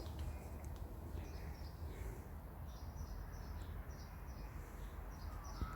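Faint bird chirps, short calls repeating over and over, above a low steady outdoor rumble.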